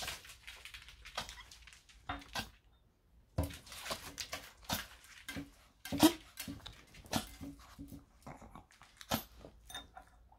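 A small dog pawing at a hard tabletop for a treat: scattered sharp claw taps and scrabbles, mixed with short sniffing and whining noises from the dog.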